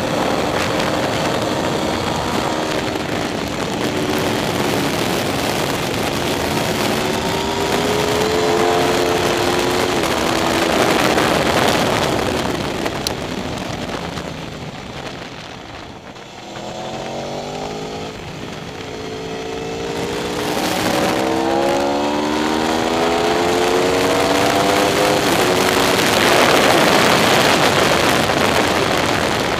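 Aprilia RSV4 R's V4 engine at full throttle, its pitch climbing in steps as it shifts up through the gears, dropping off briefly around halfway as the bike slows for a corner, then climbing through the gears again. Loud rushing wind on the bike-mounted microphone near the end, at speed.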